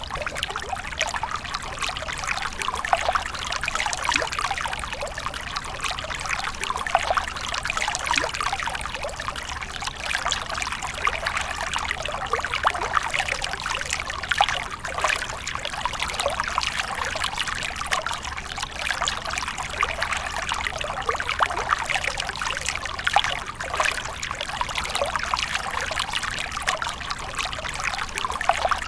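Water splashing and trickling steadily, a continuous rush dense with small splashes and no pauses.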